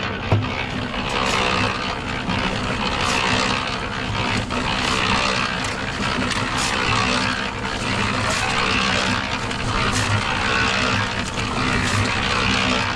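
A motor running steadily with a low hum under a haze of noise, with a few faint ticks.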